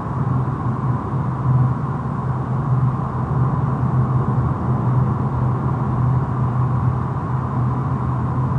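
Horror sound-design ambience: a steady low rumbling drone under a noisy hiss, with no distinct events.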